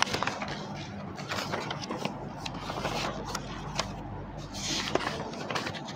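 Paper rustling as a book's pages are leafed through, with scattered small knocks and a low steady hum under it.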